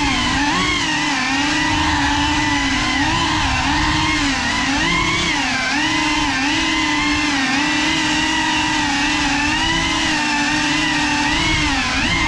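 Small FPV drone's electric motors and propellers whining, heard close up from the onboard camera. The pitch keeps rising and falling a little as the throttle changes.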